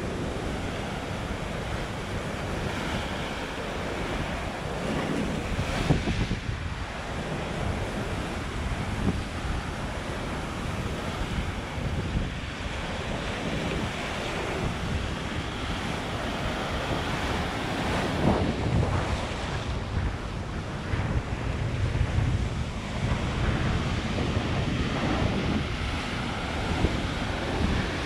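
Ocean surf breaking and washing over jagged rocks, swelling louder with each incoming wave, with wind buffeting the microphone.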